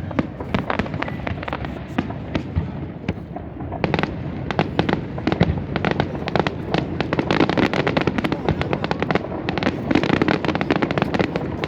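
Aerial fireworks bursting in rapid, irregular volleys of bangs and crackles, growing denser from about four seconds in.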